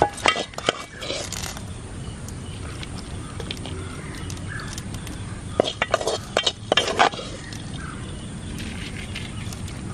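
Metal spoon clinking and scraping against a large metal cooking pot as spice paste is spooned onto boiled tapioca. It comes in two short clusters of clinks, one at the start and another about six seconds in.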